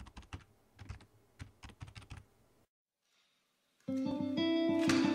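Computer keyboard typing: quick, irregular clicks that stop about two and a half seconds in. After about a second of silence, plucked guitar music with a steady beat starts near the end.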